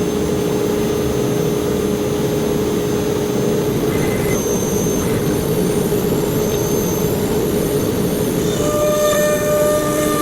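CNC router running while machining slots in walnut: a steady whine over a dense rushing noise. Near the end, a higher-pitched tone comes in and the sound gets a little louder.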